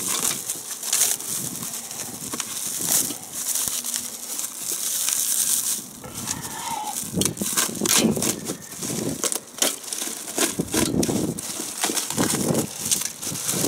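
Clear plastic stretch wrap being cut open and pulled off a wrapped kamado grill part by hand: irregular crinkling and crackling of the plastic.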